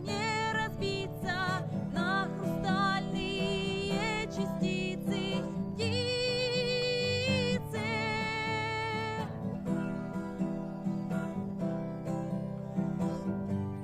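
A song sung with vibrato over a strummed acoustic guitar; the voice stops about nine seconds in and the guitar plays on alone.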